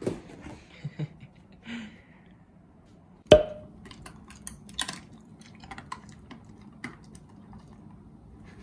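A single sharp knock about a third of the way in, followed by light, irregular clicks and taps.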